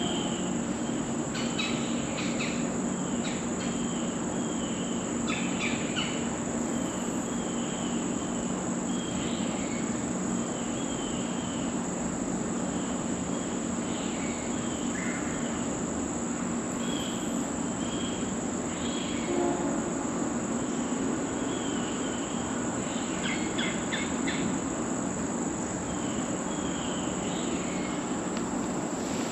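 Steady high-pitched drone of an insect chorus in late-summer woods, with short chirping calls repeating every second or so and a few brief clicks.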